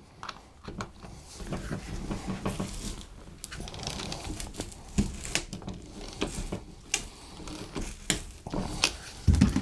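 Socket ratchet clicking in quick, irregular runs as it is worked on the pinion nut of a power steering rack and pinion. The nut is tight, so the pinion turns the rack inside instead of the nut backing off. A louder low thump comes near the end.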